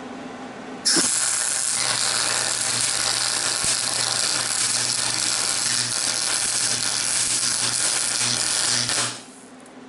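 Thermal Arc MIG welder's arc burning as a weld bead is laid: it strikes suddenly about a second in, runs as a steady loud sizzling hiss with a low hum underneath, and cuts off after about eight seconds as the run ends.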